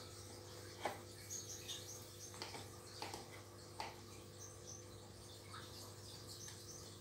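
Faint steady hum of aquarium pumps, with scattered small ticks and a few brief high chirps over it.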